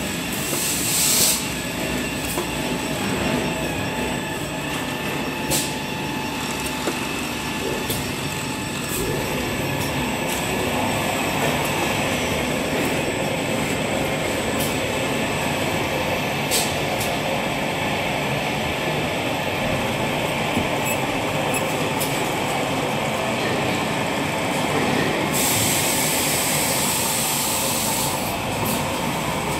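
Toilet paper production line running: conveyors and roll-handling machinery make a steady mechanical noise, with a few sharp clicks, a brief hiss about a second in and a longer hiss of about three seconds near the end.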